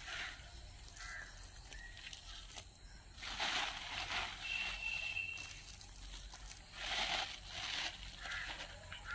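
Powdered burnt shell lime being shaken out of a plastic sack into a planting pit: soft swishing and rustling in a few bursts as the powder pours and the sack crinkles.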